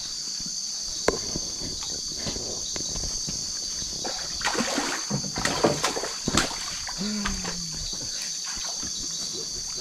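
A steady, high night chorus of crickets and other insects. From about four and a half to six and a half seconds in, water splashes and sloshes as a hooked cachama fights at the surface while being pulled in.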